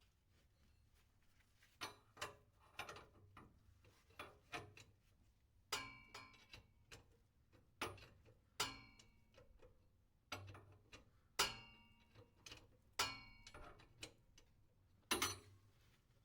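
Metal tools clinking and knocking against metal: about a dozen irregular sharp clinks, each ringing briefly, typical of wrenches and sockets being handled during a differential oil change.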